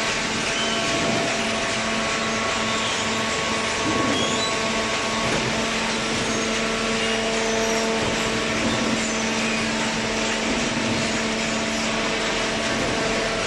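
Small hydraulic cardboard baler running: its motor and hydraulic pump make a steady hum and whine over a loud rushing noise, unbroken throughout.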